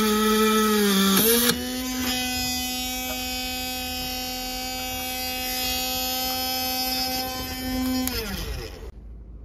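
Tamiya Sport-Tuned DC 380 motor of a small drill press whining as its bit drills thin sheet metal. The pitch sags under load, then about a second and a half in it picks up to a higher steady whine as the bit runs free. Near the end the motor is switched off and winds down to a stop.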